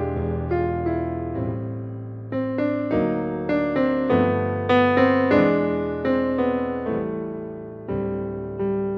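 Background piano music: a slow melody of single struck notes, each ringing and fading, over low held bass notes.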